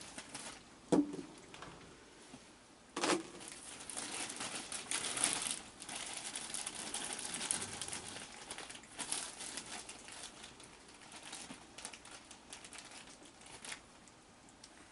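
Crinkling, rustling noise broken by many light, sharp clicks. It is densest between about three and nine seconds in, with a few separate clicks before and after.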